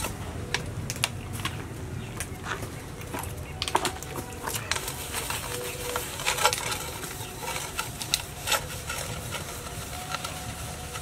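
Aluminium pots and dishes being washed by hand: a pot scrubbed with a sponge, with irregular clinks and knocks of metal cookware.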